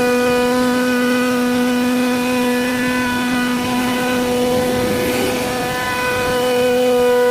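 CNC router spindle running and carving a wooden door panel: a steady whine with several overtones. About five seconds in the lower tone drops out for a moment with a brief rasp, then comes back.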